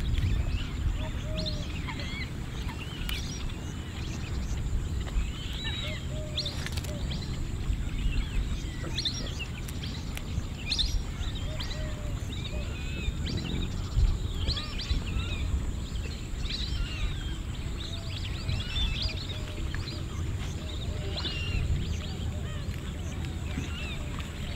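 Many small birds chirping and calling in short, scattered chirps, over a steady low rumble and a faint high steady hiss. There is a single sharp knock about halfway through.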